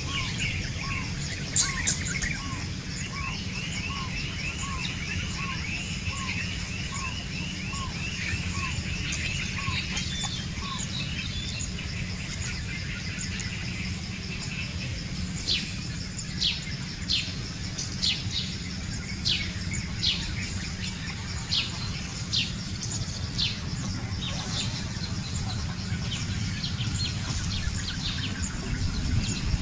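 Wild birds calling: for the first ten seconds a short note repeats a little under twice a second beside a faster, higher trill, then a run of sharp descending chirps comes about once a second through the middle. A steady low rumble of outdoor background noise runs underneath.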